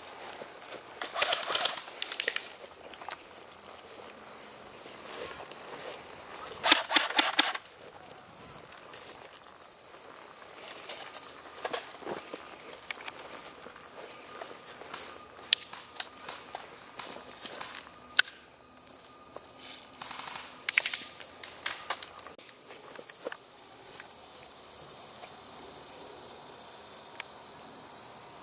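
Airsoft guns firing short bursts of rapid pops, twice early on, then a few scattered single shots. Under them is a steady high drone of insects.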